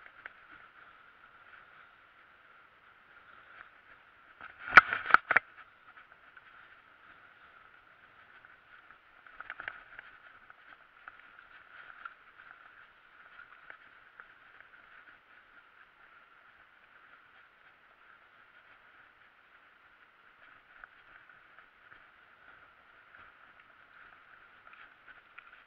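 Mountain bike riding along a dirt trail: a steady hiss of wind and tyres. A loud clatter comes about five seconds in and a smaller one near ten seconds, as the bike jolts over bumps.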